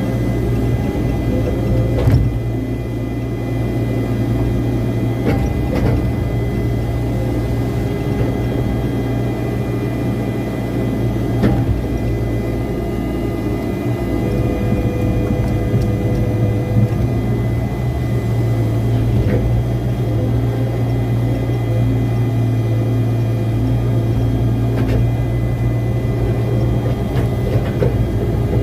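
Hitachi hydraulic excavator's diesel engine running steadily, with a few sharp knocks.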